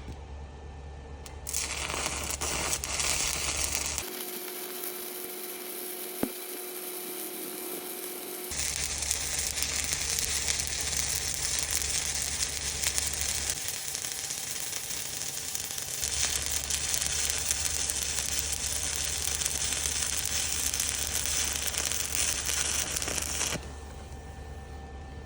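Electric arc welding: a steady crackling, sizzling hiss in several runs, starting about a second and a half in and stopping shortly before the end.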